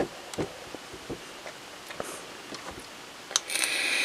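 A box-mod vape is fired for another draw: a click about three and a half seconds in, then a steady hiss from the coil and the air pulled through the tank as vapor is inhaled. Before that there are only soft puffs and faint handling clicks.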